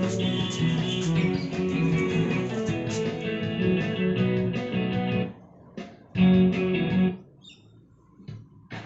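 Guitar music played from a phone over Bluetooth through a mid-1960s Philips radiogram's amplifier and speaker. It stops about five seconds in, plays again for about a second, then stops, leaving a few faint clicks.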